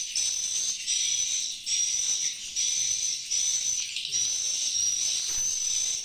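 Swiftlet calls filling the inside of a swiftlet nest house: a dense, high twittering with a sharp high note repeating about every three-quarters of a second. This is the kind of call that a nest house plays through its speakers to lure the birds in.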